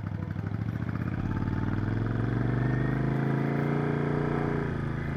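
Motorcycle engine under way, its pitch rising as it accelerates from about a second in, holding steady, then dropping as the throttle eases near the end.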